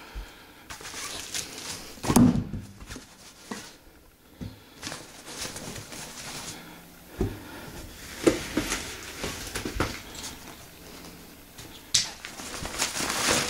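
Hiking backpack being handled: nylon fabric rustling, straps and buckles clicking, and a few dull thumps from the loaded pack, with denser rustling near the end.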